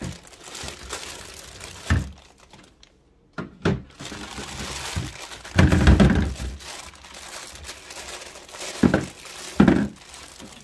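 Thin clear plastic bags crinkling and tearing as they are handled and pulled open, with several knocks on the tabletop, the loudest cluster about six seconds in.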